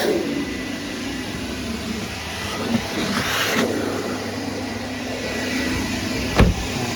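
1985 Kärcher coin-operated vacuum cleaner running steadily with a continuous motor drone. A brief rush of hiss comes about three seconds in, and a single thump near the end.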